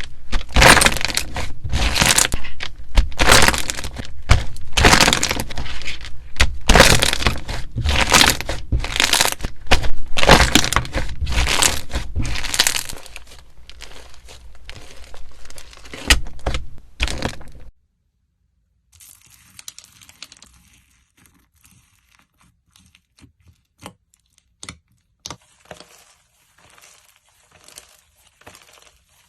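Slime being squeezed and pressed, giving a loud, dense run of crackling pops and clicks. The crackling thins out and stops about two-thirds of the way through, leaving only faint scattered clicks.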